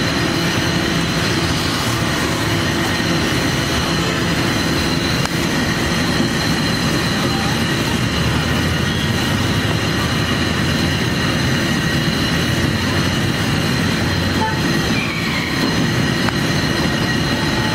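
Burger buns toasting in butter on a hot flat-top griddle, sizzling steadily, over a constant mechanical hum and rumble.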